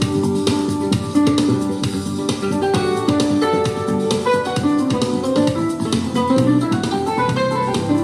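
Instrumental music with plucked guitar over a drum kit, no vocals.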